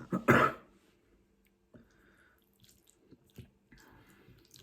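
Close-up eating sounds: a loud wet slurp about a third of a second in, then quiet chewing with small clicks and smacks.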